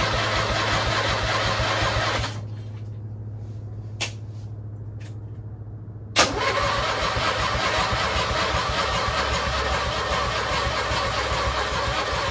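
Small petrol engine on lawn or snow equipment running loud and steady over a low hum. About two seconds in, the loud running drops away, leaving only the low hum and a few light clicks. A sharp click about six seconds in brings the loud running back.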